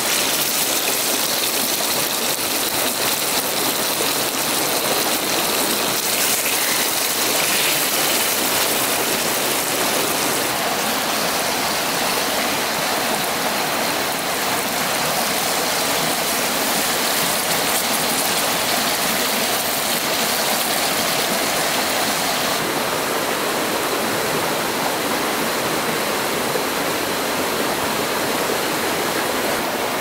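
Rushing stream water running over rocks, a steady rush with no break.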